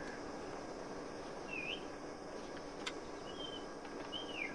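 Faint outdoor ambience: a steady hiss with a few short bird chirps, one about a second and a half in and two more near the end, and a single sharp tick about three seconds in.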